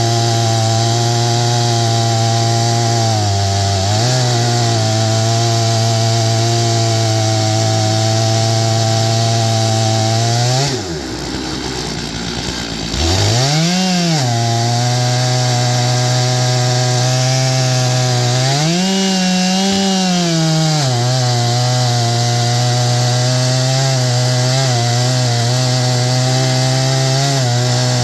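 Stihl MS661 two-stroke chainsaw with a 36-inch bar and full chisel chain, running steadily under load as it rips a pine log on an Alaskan mill. About eleven seconds in the engine drops to a low idle for a couple of seconds, then revs up sharply and settles back to its working speed. Later it briefly speeds up and drops back again.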